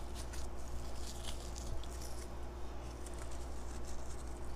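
Faint, irregular rustling of a glittery pipe cleaner being handled and wrapped around a popsicle-stick swing seat, over a steady low hum.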